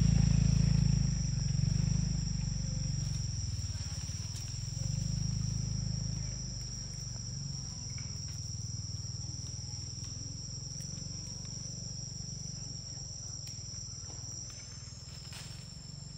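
Insects droning steadily at a single high pitch, as cicadas or crickets do, with a low rumble, like a distant engine, that is loudest at the start and fades away over the first several seconds.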